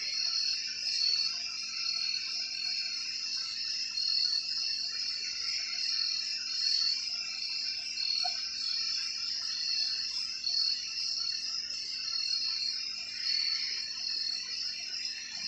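Crickets chirping in a steady, high-pitched night chorus.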